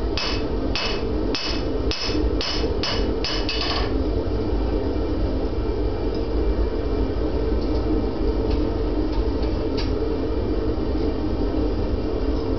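Blacksmith's hammer striking a 1/4" x 1/2" steel bar on an anvil while drawing a two-sided taper. About eight quick, sharp blows fall in the first four seconds, followed by a few faint taps. A steady low rumble runs underneath.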